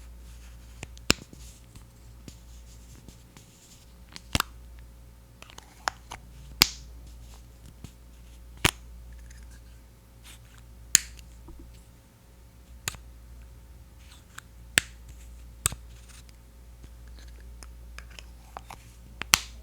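Sharp, isolated taps or clicks close to the microphone, about ten, coming irregularly every one to two seconds: ASMR tapping on the Hawaiian Tropic mineral sunscreen powder's plastic case.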